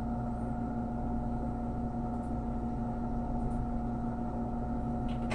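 Steady electrical hum from running bench equipment, holding one constant pitch throughout, with a couple of faint small ticks of handwork.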